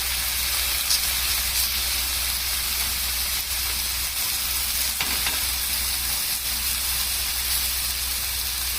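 Spiced pineapple pieces frying in butter on a hot dosa griddle: a steady sizzle with a few faint crackles.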